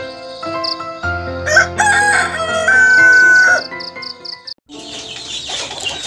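A rooster crowing once, loud, its call rising and ending on a long held note, over soft music with a steady cricket-like chirping. About a second after the crow ends, the music stops and gives way to a noisy hiss.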